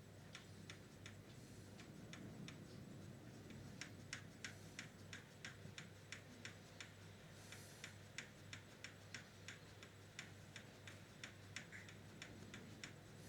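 Faint, regular ticking, about three ticks a second, over a low steady hum, with a brief soft hiss just past halfway.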